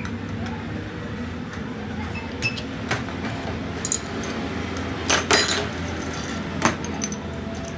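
Small metal parts of a tractor diesel injection pump clinking and knocking as they are handled during disassembly, a few sharp clinks with the strongest about five seconds in, over a steady low hum.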